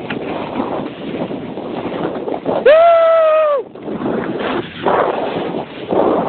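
A snowboard scraping and chattering over icy, hard-packed snow with wind on the microphone. Near the middle a person lets out one loud, high whoop, held for about a second.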